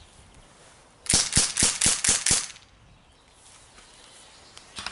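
Umarex Colt SAA .45 CO2 revolver firing steel BBs in a rapid string of six sharp shots, about a quarter second apart, over roughly a second and a half.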